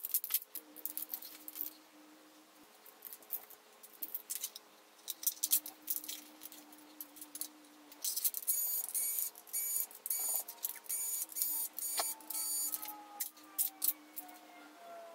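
Small clicks and metallic clinks of screws, screwdrivers and metal laptop parts being handled on a hard floor during a teardown, with a denser run of rapid rattling ticks about eight seconds in. A faint steady hum sits underneath and changes pitch now and then.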